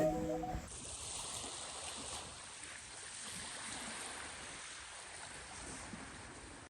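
Faint, steady wash of sea waves at the shoreline, an even rushing noise without any tone that eases slightly near the end.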